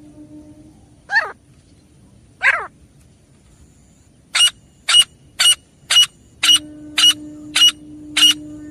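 Grey francolin calling: two falling calls in the first few seconds, then a fast run of short, sharp notes at about two a second.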